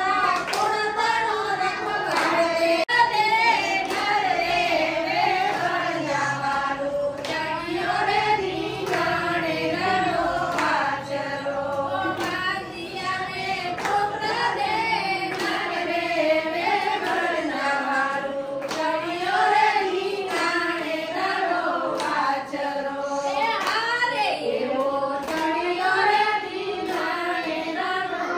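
A group of women singing a devotional song together in unison, clapping their hands along with it.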